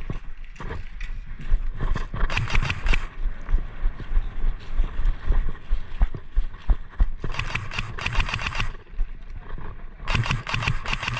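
Airsoft guns firing in full-auto bursts, a rapid buzzing clatter of shots, three times for about a second each, with scattered single clicks and shots between.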